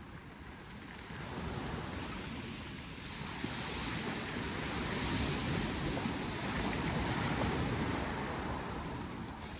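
Sea surf breaking and washing on a shingle beach, with wind on the microphone. The wash builds after the first second and eases near the end.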